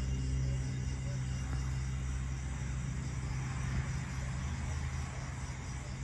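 A low, steady engine rumble that slowly fades after the first couple of seconds.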